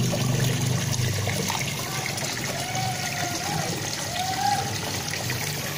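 Steady splashing and trickling of water running into a koi pond, with a low hum that fades out about a second in.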